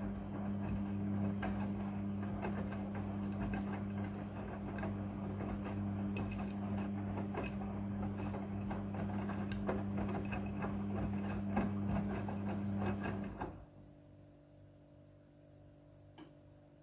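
Front-loading washing machine in its wash cycle: the drum motor turns with a steady hum while clothes and water slosh and knock inside, then the drum stops suddenly about three seconds before the end.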